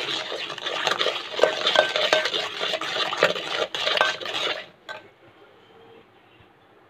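Steel spoon stirring cake batter briskly in a stainless steel pot, with fast clinking and scraping against the metal sides. The stirring stops about four and a half seconds in, followed by one more light clink.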